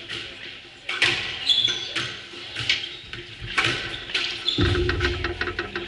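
Squash rally: the ball is struck by rackets and cracks off the court walls about every half second to second, with shoes squeaking on the wooden floor. A low rumble with rapid clicking comes in near the end.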